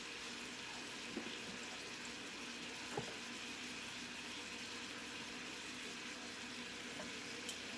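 A pan of zucchini, yellow squash and onions simmering on low heat in its own juices, a steady soft sizzle. A faint click about three seconds in.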